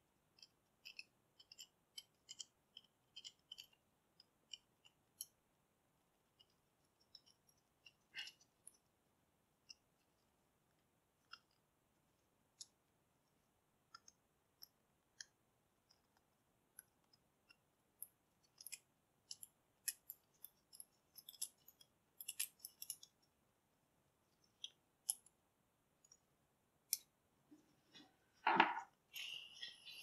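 Faint, sparse metallic clicks and ticks from a lock cylinder and its small pins being handled during rekeying. The clicks bunch in the first few seconds and again around two-thirds of the way through, and a louder rustling clatter comes near the end.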